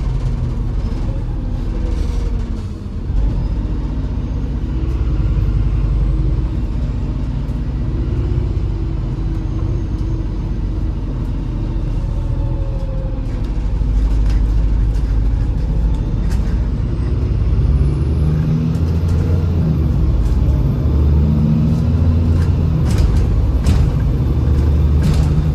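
Inside a MAZ-203 city bus under way: a steady low engine and road rumble, a little louder about halfway through, with a faint high whine rising in the second half and a few sharp rattling clicks near the end.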